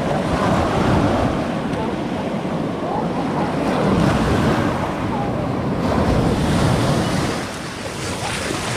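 Ocean surf breaking and washing up the shore close by, swelling and easing a few times as the waves come in, with wind buffeting the microphone.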